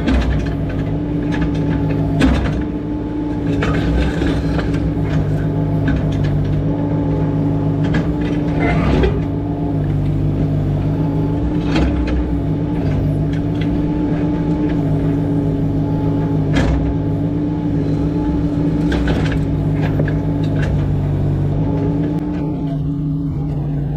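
A heavy vehicle engine running at a steady speed, with a few short clunks and rattles over the top.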